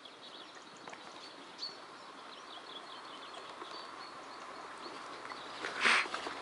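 Pony eating duckweed at the pond surface, with faint mouthing and cropping clicks over faint birdsong. A short, loud rush of noise comes about six seconds in.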